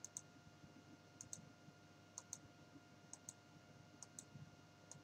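Faint computer mouse button clicks, each a quick press-and-release pair, coming about once a second as vertices are selected one at a time. A faint steady electrical hum lies under them.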